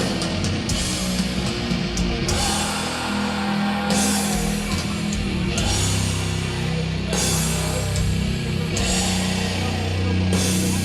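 Doom metal band playing live: heavily distorted guitars and bass hold long, low chords over a slow drum beat, with cymbal crashes washing in every second or two.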